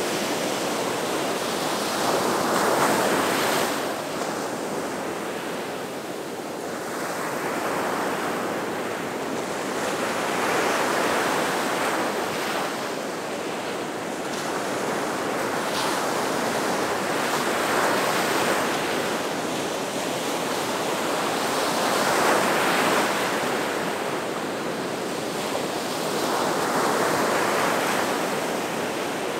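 Gulf of Mexico surf breaking on the beach: a continuous wash that swells and eases as each wave breaks, about every four seconds.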